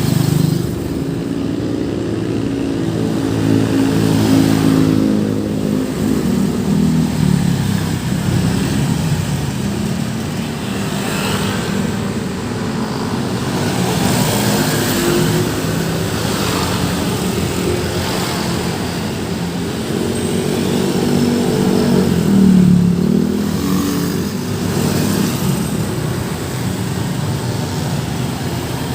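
Busy road traffic passing: a steady stream of car, motorcycle and bus engines, with the pitch bending as vehicles go by. The loudest passes come about five seconds in and again past twenty seconds.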